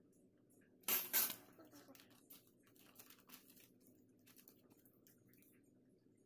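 A sheet of paper being spread out on a table, with a loud crackling rustle about a second in, then faint rustles and light taps as leaf-wrapped rice rolls are handled on a plate, over a low steady room hum.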